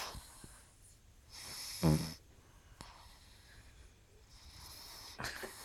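Pug snoring in its sleep: a breathy in-breath that ends in one loud, low snort about two seconds in, then a softer snoring breath near the end.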